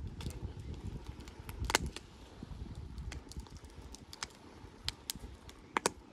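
Wood fire crackling in a small barbecue grill: irregular sharp pops and snaps, the loudest a little under two seconds in and a pair near the end, over a low steady rumble.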